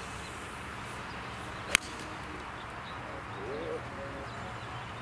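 A 4-iron striking a golf ball off the tee: one sharp click with a brief ring, a little under two seconds in.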